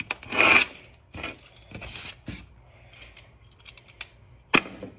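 Plastic packaging bags being opened by hand: a few loud rips and rustles in the first couple of seconds, then small clicks, and a single sharp knock near the end.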